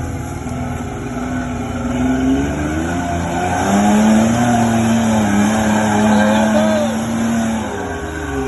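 Toyota Land Cruiser 80 Series engine revving hard under load off-road: the pitch climbs about three and a half seconds in, is held, then drops back near the end.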